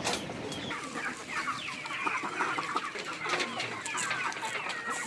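A flock of chickens clucking and calling, many short calls overlapping throughout.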